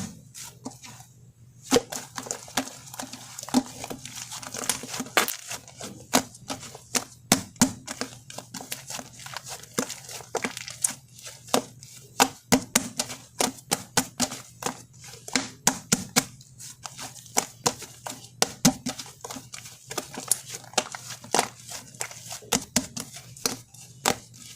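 Shaving-foam slime being squeezed and kneaded by hand, giving irregular sticky clicks and small crackling pops several times a second.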